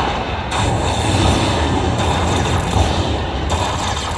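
Aristocrat Lightning Link slot machine's win count-up sound as the bonus total tallies up, over a steady background din.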